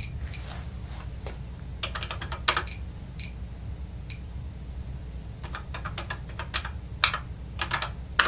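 Keys clacking on a TRS-80 Model 1 keyboard as commands are typed: scattered single clicks and a few short quick runs, over a steady low hum.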